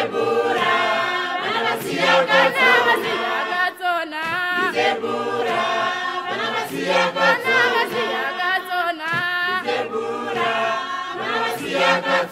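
Background music: a choir singing, several voices together in a flowing melody, with no steady beat.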